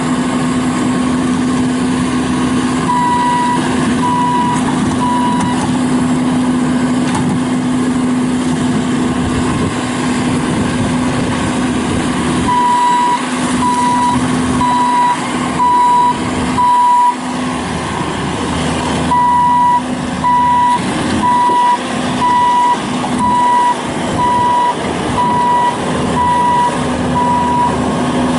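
Bobcat S750 skid steer loader's diesel engine running with a steady drone, while its backup alarm beeps in evenly spaced runs, a short run early and a long run from about halfway to near the end, as the machine reverses.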